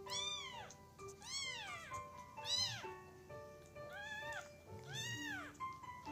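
A newborn kitten mewing: five short, high, rising-and-falling calls about a second apart. Soft background music of held notes plays underneath.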